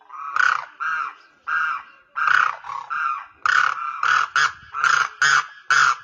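Demoiselle crane calling: a quick run of about a dozen short, loud pitched calls, roughly two a second, coming faster and sharper in the second half.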